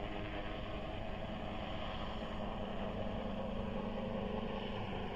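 Helicopter heard from a distance: a steady engine and rotor drone with a low hum that does not change.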